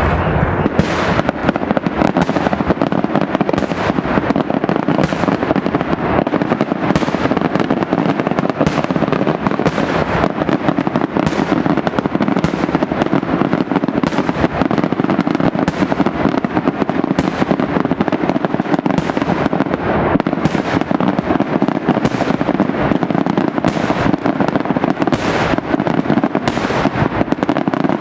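Daytime aerial fireworks barrage: a dense, continuous crackle of exploding firecrackers and shells, with sharp bangs standing out about once a second.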